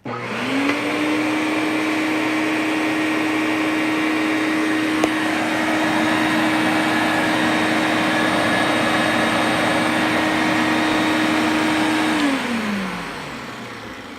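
Eureka Whirlwind Power System 1200 W bagless vacuum cleaner with a two-stage motor, which the owner takes for a Lamb motor, switched on: it spins up within about a second and runs steadily with a clear whine. About twelve seconds in it is switched off and the motor winds down, its pitch falling.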